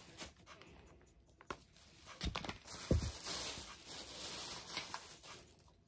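Plastic bag and face-mask packets rustling and crinkling as they are handled, with a couple of dull bumps about two and three seconds in.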